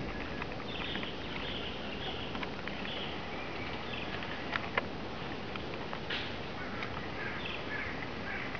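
Outdoor tree-canopy ambience with birds chirping in short repeated high calls, and a few sharp clicks about halfway through.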